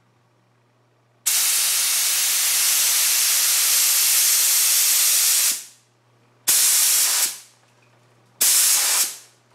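Gravity-feed spray gun with a 1.3 mm tip, loaded with lacquer thinner, hissing as it sprays in three trigger pulls: one long pull of about four seconds, then two short bursts under a second each. Each starts sharply and tails off as the trigger is released.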